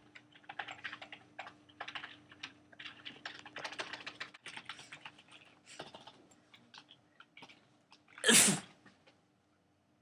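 Typing on a computer keyboard, a rapid patter of key clicks for about seven seconds, then one loud sneeze about eight seconds in.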